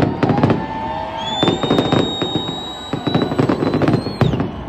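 Fireworks display: a rapid series of sharp bangs and crackles. A high steady whistle comes in about a second in and drops away in pitch near the end.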